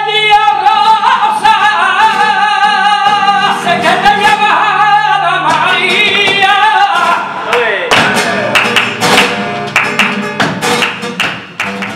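Flamenco singing: a male cantaor holds long, wavering, ornamented sung lines over flamenco guitar. About two-thirds of the way in, the long notes give way to a run of quick, sharp percussive strokes.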